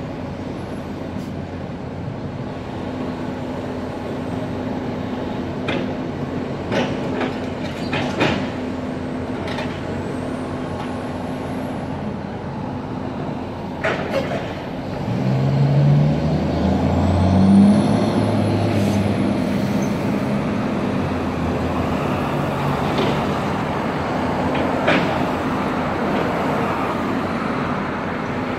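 Excavator's diesel engine running steadily while it works demolition rubble, with sharp clanks and knocks of concrete and metal debris every so often. About halfway through, a road vehicle passes with a louder low engine drone that rises and then fades.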